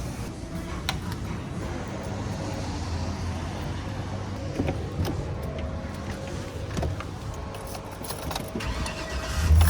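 Car cabin road noise while driving: a steady low rumble with scattered small clicks and rattles. A louder low hum swells in near the end.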